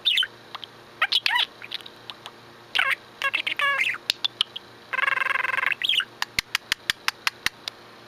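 Pet budgerigar chattering: quick chirps that glide up and down, one longer held call about five seconds in, and a run of sharp clicks near the end.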